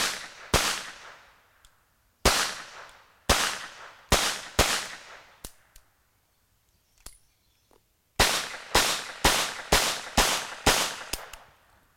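Webley & Scott Mark IV revolver in .38 S&W firing two rapid strings of shots, about two shots a second, with a pause of about three seconds between the strings.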